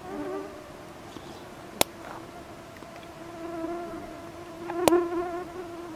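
Flying insects buzzing, steady in pitch, growing louder and fading again, with two sharp clicks about three seconds apart.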